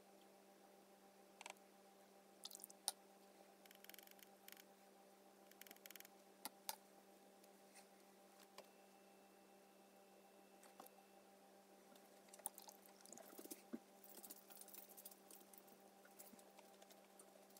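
Faint, scattered taps and soft dabs of a paintbrush on wet watercolour paper, over a steady low electrical hum.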